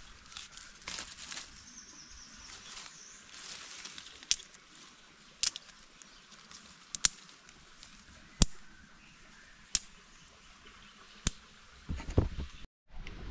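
A series of about seven sharp single clicks, spaced a second or so apart, as a fire lay of sticks is struck to light it, over faint rustling of dry leaves and twigs; a louder rustle comes near the end.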